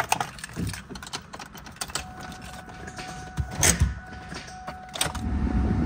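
Clicks and rattles of keys and the ignition being worked, with a faint steady whine from about two seconds in. About five seconds in, the 2003 Mustang SVT Cobra's supercharged 4.6-litre V8 is started cold and the sound turns to a louder low engine note.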